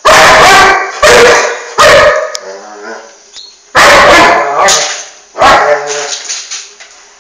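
Doberman barking at a coffee mixer: five loud barks in about six seconds, spaced unevenly.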